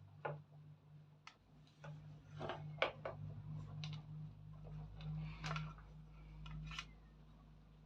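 Irregular clicks and light taps, a dozen or so with the loudest near the middle, over a faint steady hum: small hard parts being handled during the speaker repair.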